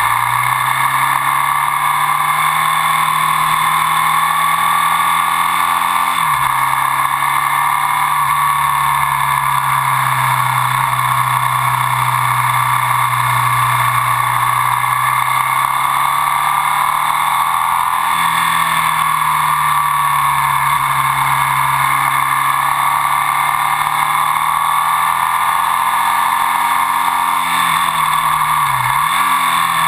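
Ducati Sport 1000's air-cooled 992 cc L-twin engine running under way. The engine note dips briefly and climbs again several times as the revs change.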